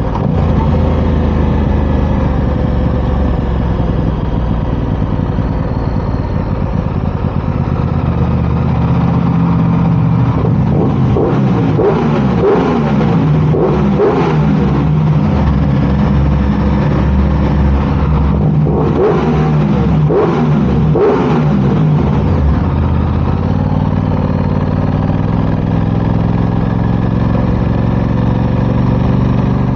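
An engine running steadily, revved up and down several times in the middle, then settling back to a steady run.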